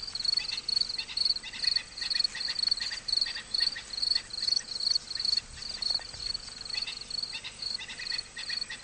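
Insects chirping in a steady rhythm, about three high chirps a second, with fainter, lower chirps between them.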